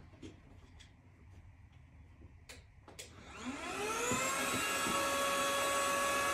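Two clicks, then an electric air pump motor starts about three seconds in, its whine rising in pitch as it spins up and then running steadily with a rush of air, inflating the air bed.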